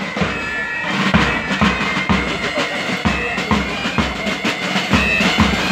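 A pipe band playing a march: Highland bagpipes sounding their steady drone and melody over drums, with the bass drum beating about twice a second.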